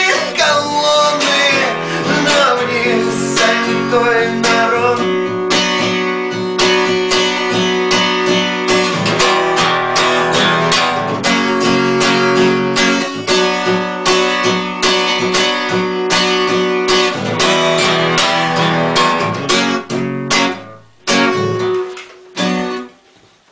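Acoustic guitar strummed in steady chords as the song's instrumental outro, with a wordless sung line over the first few seconds. Near the end the strumming breaks off in short stops and dies away.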